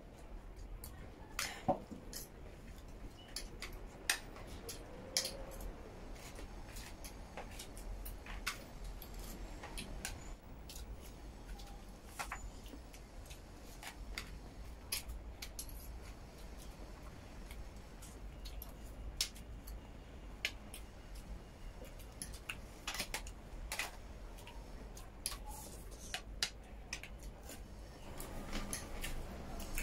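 Metal forks and spoons clinking and scraping against steel food trays in many light, irregular clicks, with eating and chewing between them.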